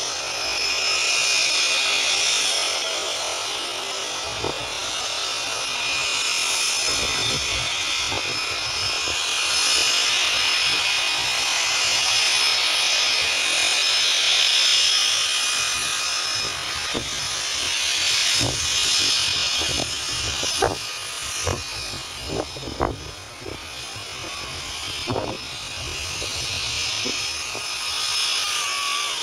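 Floatplane engine heard from across the water: a steady, high-pitched drone. A scattering of short sharp clicks comes in the second half.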